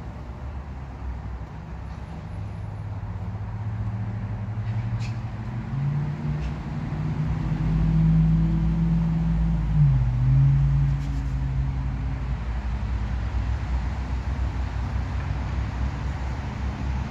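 A motor vehicle's engine running: a low hum whose pitch steps up about a third of the way in and drops back a little past the middle, loudest around the middle.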